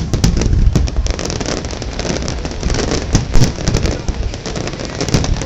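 Fireworks display in a rapid barrage: many aerial shells bursting at once, dense crackling and popping over deep booms, with one especially loud report a little past the middle.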